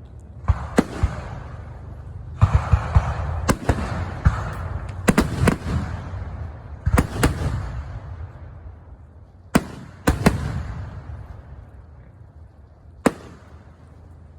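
Aerial fireworks bursting overhead: sharp bangs in quick volleys, with crackling and rumbling echo after each one. The busiest stretch is from about two to seven seconds in, and a last single bang comes near the end.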